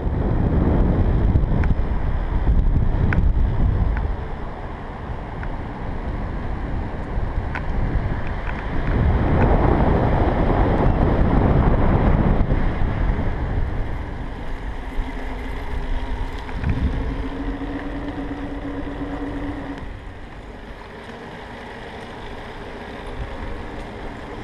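Wind buffeting the microphone of a camera riding on a moving recumbent tricycle, with road rumble. The buffeting is heaviest in the first few seconds and again around the middle, and a steady hum sounds for a few seconds after the middle.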